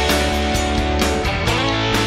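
Background music: a guitar-led track with a steady drum beat.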